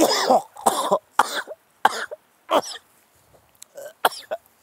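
A man coughing in a run of short, harsh coughs, about ten in all, the later ones quieter.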